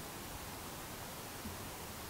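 Steady faint hiss of background noise with nothing distinct in it, apart from one soft brief bump about one and a half seconds in.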